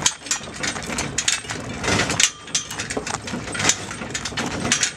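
Small horse-drawn wheeled lorry rolling along behind a Clydesdale in shafts, its hollow metal shafts and harness rattling and knocking irregularly.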